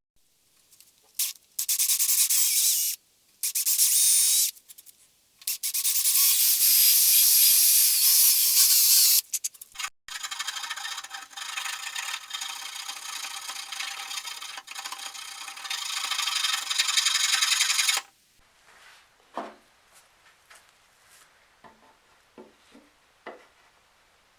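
Wood being sanded by hand in several loud stretches of a few seconds, then a longer steady stretch of about eight seconds, ending in a few light knocks.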